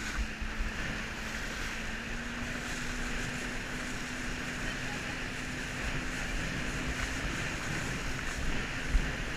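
Steady rush of wind and water spray as an inflatable flying fish is towed fast over the sea, under the low steady hum of the towing motorboat's engine, which rises slightly in pitch about two seconds in. A brief bump or splash near the end.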